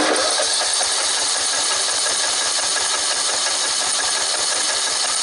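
Electric starter cranking a 14.5 hp Briggs & Stratton tractor engine for a compression test, the spark plug out and a compression gauge in the plug hole, spinning over steadily with a fast even pulse. The gauge holds at 120 psi, which the owner reads as healthy compression and a good head gasket.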